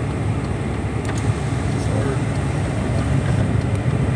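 Steady low rumble of a car, heard from inside the car.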